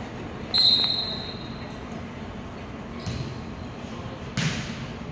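Referee's whistle blown once, a short shrill blast about half a second in, then a volleyball being hit twice, two sharp smacks about a second and a half apart, in a reverberant gym.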